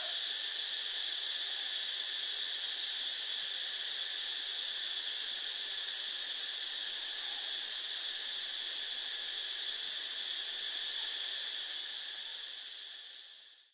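Steady high-pitched insect chorus, a continuous chirring drone with no breaks in it, fading out near the end.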